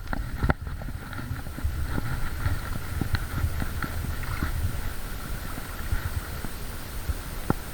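Fishing reel being cranked to retrieve a topwater lure: light, irregular clicking and ticking over a low rumble, with one sharper click near the end.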